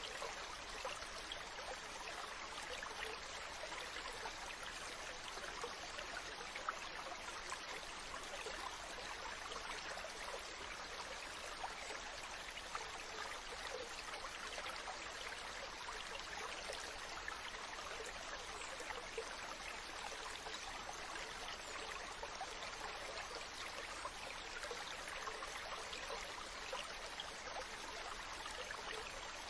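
Steady rushing water with dense, fine crackling splashes, even in loudness throughout, without the surge and fall of separate breaking waves.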